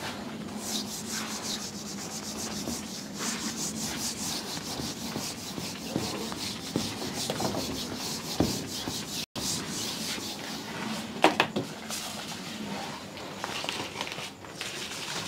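Whiteboard eraser rubbing back and forth across a marker whiteboard, wiping the writing off in quick repeated strokes. There is a brief break about nine seconds in and a single sharp tap a little past eleven seconds in.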